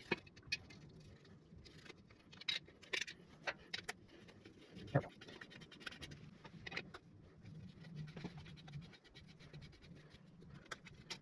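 Faint, scattered clicks and light scrapes of a bolt and washer being handled and turned in by hand on a motorcycle's side cover, with a sharper click about five seconds in.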